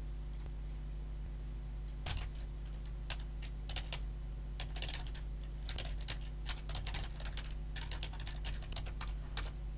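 Typing on a computer keyboard: irregular runs of key clicks starting about two seconds in, over a steady low hum.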